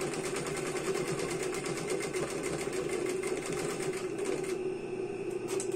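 Industrial sewing machine stitching at speed as ribbon is fed under the needle, with a rapid even chatter. The stitching stops about four and a half seconds in, leaving a steady hum and a click near the end.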